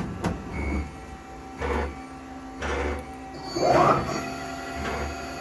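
Mazak Super QT 200M CNC lathe running: a steady machine hum with a rhythmic pulse about once a second, and a louder rising whoosh about three and a half seconds in.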